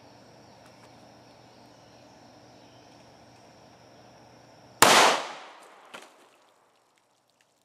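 A single .45 ACP pistol shot, a 185-grain +P Barnes TAC-XPD round, about five seconds in, with a short decaying echo. A smaller knock follows about a second later as the watermelon target bursts apart.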